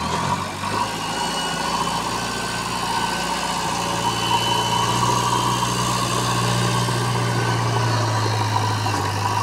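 JCB 3DX backhoe loader's diesel engine running steadily at low revs, getting a little louder about three seconds in.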